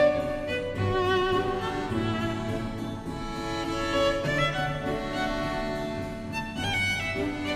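Background music: a bowed violin melody with vibrato over sustained lower strings.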